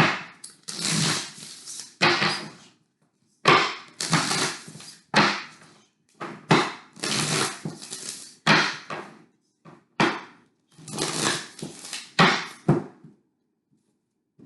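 A deck of tarot cards being shuffled by hand, in a dozen or so short rustling bursts with brief pauses between them.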